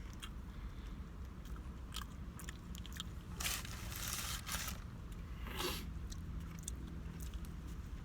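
A person chewing a double hamburger: wet mouth sounds and small clicks, with a few louder crunchy bursts around the middle.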